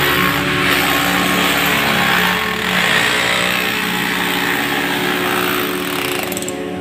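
A power tool runs loudly: a harsh, rasping machine noise over a steady motor hum, dying away near the end.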